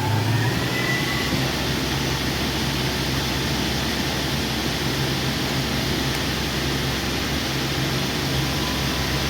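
YCM NTC-1600LSY CNC lathe running under power on a dry run: a rising whine levels off about a second in, then a steady whirring hiss with a low hum.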